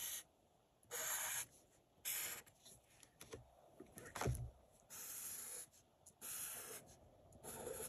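Sharpie permanent marker drawn across paper in short, quick strokes: about six scratchy strokes of about half a second each, with a soft thump about four seconds in.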